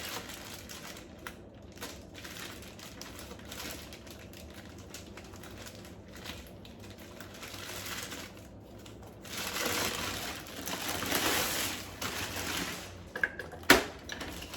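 Packaging rustling and crinkling as a Roomba robot vacuum is taken out of its box, louder about ten seconds in, with a single sharp knock near the end.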